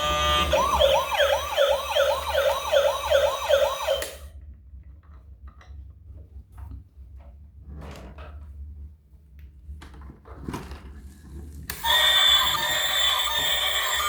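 Electronic siren sound from a toy emergency vehicle: a quick wail repeating its rise and fall about two to three times a second, which stops suddenly about four seconds in. Faint clicks and knocks follow, and near the end a loud electronic toy sound of several steady tones starts.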